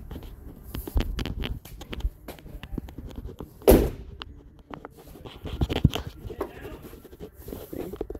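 Phone handling and clothing rubbing against the microphone, with scattered knocks as a person climbs out of a pickup truck's cab, and one loud thud a little under four seconds in.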